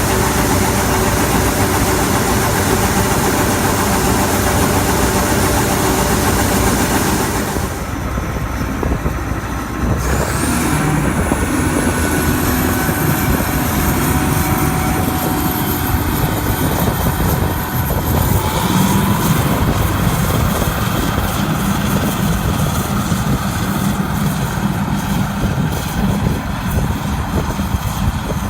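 Large diesel farm machinery running steadily under harvest load. The sound changes about seven seconds in, and a high whine rises about ten seconds in and holds for several seconds.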